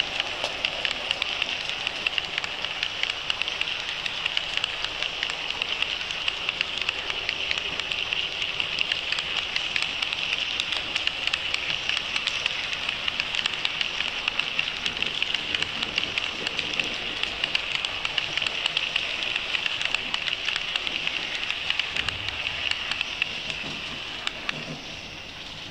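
HO-scale model trains running past on the layout's track: a steady metallic rattle of wheels on the rails, full of small rapid clicks at rail joints, fading near the end.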